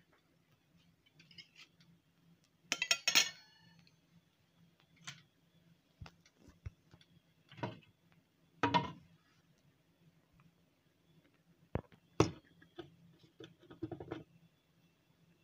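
Metal fork clinking and knocking against a plate: scattered sharp clinks with a quick rattling cluster about three seconds in, the loudest, and single knocks after it.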